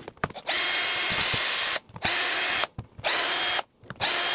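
Cordless drill-driver undoing the Phillips screws of a hammer drill's housing: four short runs, each with a steady high whine, the first the longest.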